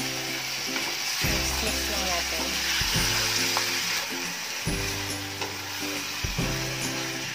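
Raw chicken pieces sizzling in hot oil with chopped ginger and garlic, stirred and turned with a slotted spatula. Background music with a steady low part plays underneath.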